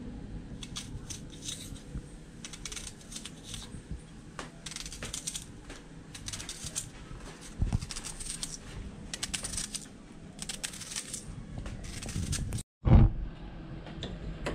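Knife slicing through a whole onion held in the hand, cutting it into rings: a run of short, crisp cutting sounds. Near the end, after a brief break, a single loud knock.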